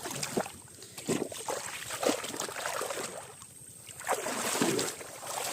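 Shallow water splashing and sloshing in irregular bursts, with small clicks and drips, as people wade and handle a fishing net.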